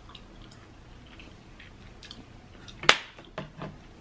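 A crisp bite into a fresh cucumber spear about three seconds in, followed by two softer crunches as it is chewed, picked up by a close microphone; a few faint ticks before it.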